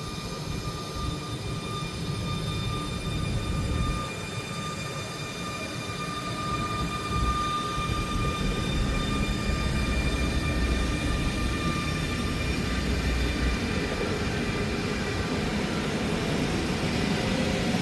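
Train at a station platform: a low rumble with several steady high whining tones over it, swelling slightly in the second half.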